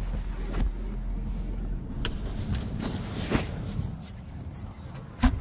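Handling noise from a phone being moved around inside a car: scattered soft knocks and rubbing, with one sharp knock near the end. A low rumble underneath fades out about two seconds in.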